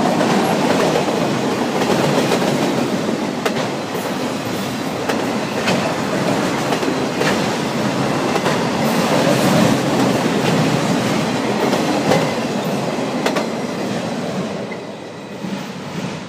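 Freight train autorack cars rolling past with a steady rumble of steel wheels on rail and sharp wheel clicks every second or two. The sound fades near the end as the last car passes and moves away.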